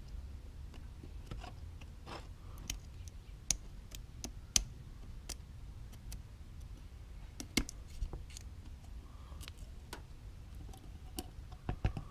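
Scattered sharp clicks and light taps at an uneven pace, a few louder than the rest, over a faint low rumble: small handling noises.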